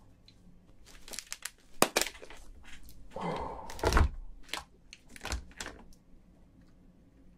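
Cooked shell of a giant crayfish being cracked and pulled apart by gloved hands: a run of irregular sharp cracks and snaps with crinkling and a few dull knocks.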